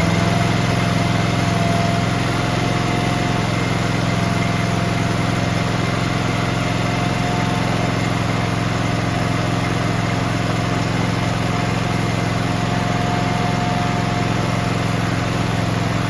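Bradley 48SC mower's 24 hp Vanguard V-twin engine running steadily at full throttle. It only reaches about 2,500 RPM against the 3,400 to 3,600 recommended, too slow for a good cut, which the owner puts down to a worn throttle cable.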